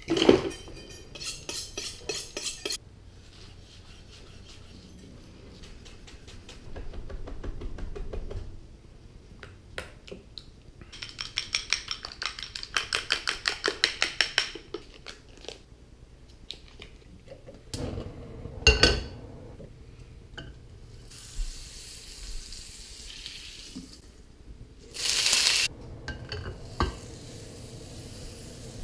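Kitchen prep sounds: a knife chopping chives and parsley on a wooden board, then a fork beating eggs briskly in a small bowl with an even clinking at about five strokes a second. Past the middle comes a loud metal clank of a skillet, and near the end a short loud rush of noise.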